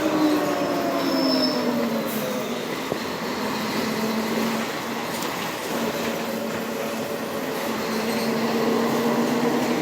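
Mercedes-Benz O500 UDA articulated bus with a Voith automatic gearbox running, its drivetrain whine falling in pitch over the first two seconds, holding steady, then rising again with higher tones near the end.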